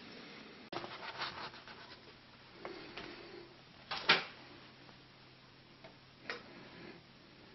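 A few sharp knocks and taps in a small room, the loudest a pair about four seconds in, over a faint steady hum.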